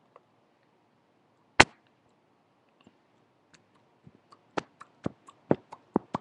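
Clicks and pops picked up by a headset microphone held right at the mouth: one sharp click about a second and a half in, then a run of clicks at a few a second from about four seconds in.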